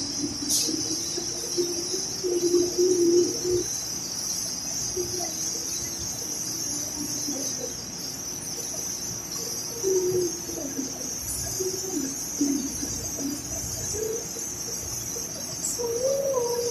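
Low, wavering bird calls repeating several times, over a steady high-pitched hiss.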